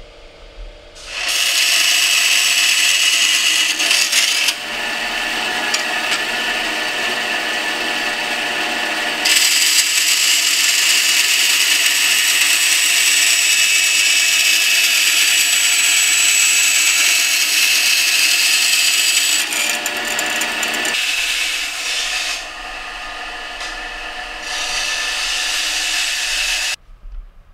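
Vertical band saw cutting a flat sheet: a loud, steady rasping hiss that steps up and down in level several times and stops shortly before the end.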